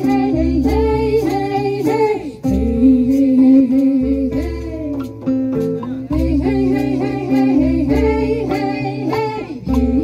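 Women singing a melody in phrases over strummed acoustic guitar, with a steady beat underneath.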